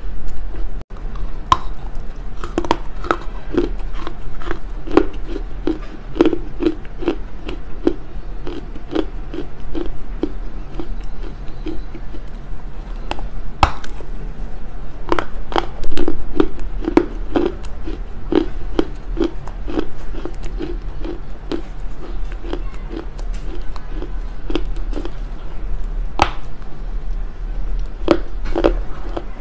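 Close-miked crunching and chewing of a lump of smoked loess clay, at about two chews a second with gritty clicks. One loud, sharp bite crunch comes about halfway through.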